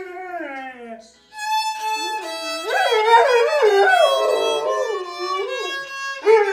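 A violin being played while a dog howls along with it. A howl slides down in pitch in the first second, then violin notes come in with the dog's wavering howls over them.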